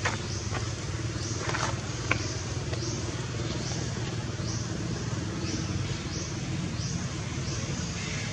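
Outdoor ambience: a short, high insect-like buzz repeating evenly about every two-thirds of a second over a steady low rumble, with a few faint clicks in the first two seconds.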